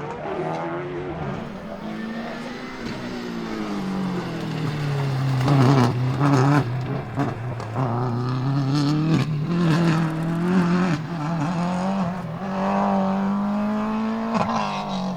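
Subaru Impreza S7 WRC rally car's turbocharged flat-four engine at full race pace, its note rising and falling through several gear changes and loudest about six seconds in, with sharp cracks from the exhaust on and off.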